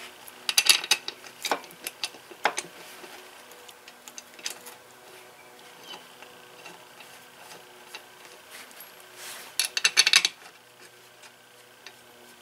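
Hand tools and metal engine parts clinking and knocking on a workbench. A cluster of sharp clicks comes about half a second in, then a few separate knocks, and a quick run of rattling clicks about ten seconds in.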